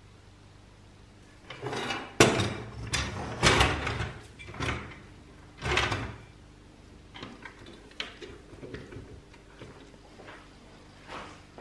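A rusty steel Tonka T6 toy bulldozer being picked up, turned over and set down on a wooden bench: a quick run of loud clunks, scrapes and rattles in the first half, then quieter light knocks and ticks.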